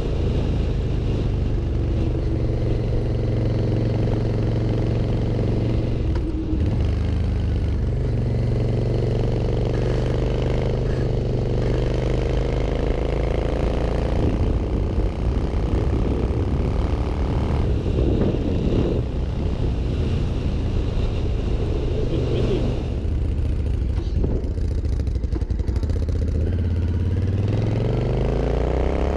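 Suzuki VZ800 Marauder's V-twin engine running while riding, its pitch rising several times as the bike accelerates, with drops in between where the revs fall back.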